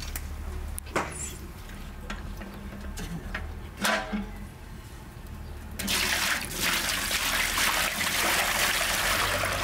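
Two knocks as a metal milk can is lifted, then from about six seconds in a steady, heavy pour of persimmon juice from the can into a large aluminium basin, splashing and foaming as it lands.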